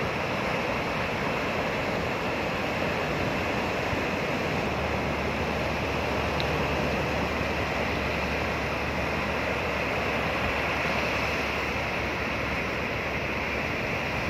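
Ocean surf breaking and washing up a sandy beach: a steady rushing. Wind rumbles on the microphone through the middle.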